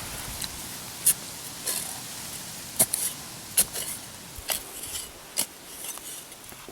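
Digging in loose sandy soil: a tool scraping and striking grit and stones, with sharp scrapes or clinks about once a second.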